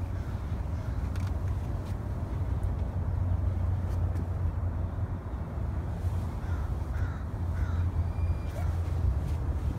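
Steady low wind rumble buffeting the microphone, with a few faint short bird calls about two-thirds of the way through.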